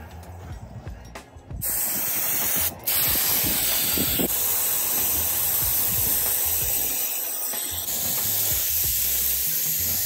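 Compressed-air spray gun hissing as it sprays a coat onto a panel. It starts about a second and a half in, breaks off briefly near three seconds, then runs on steadily.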